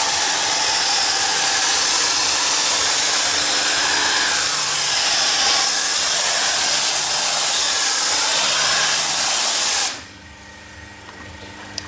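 Pressure washer jet spraying water in a steady loud hiss, cutting off suddenly about ten seconds in.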